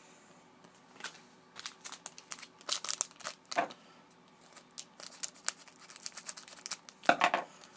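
Foil trading-card pack wrapper being crinkled and torn open, with scattered rustles and clicks as the cards are handled.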